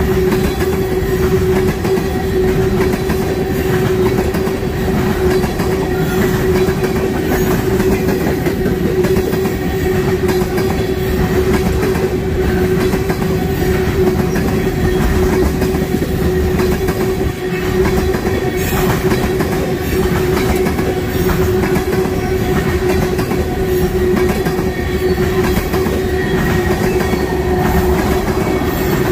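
Freight train cars rolling steadily past at track side, a continuous rumble with light clicking from the wheels and a steady ringing tone held throughout.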